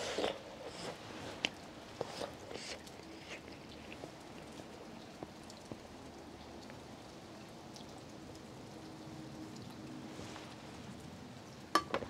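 Gentle, steady rain falling, with scattered soft taps and clicks through the first few seconds and once near the end.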